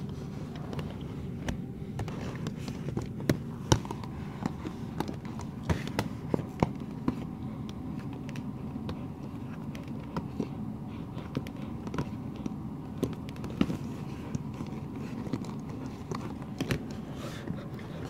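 Irregular clicks and taps from a puppy's plastic cone collar and a hard chew bone knocking together as the puppy gnaws at the bone, some taps sharper and louder than others, over a steady low rumble.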